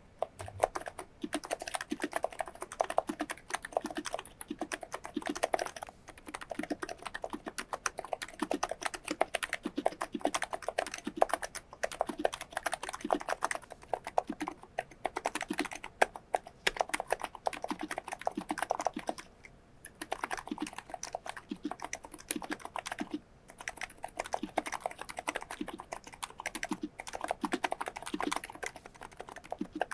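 Continuous typing on a COX Endeavour tenkeyless keyboard with 35g non-contact (electro-capacitive) switches, lubricated and fitted with horseshoe-type stabilizers. The key strokes come in quick runs, with brief pauses about twenty and twenty-three seconds in.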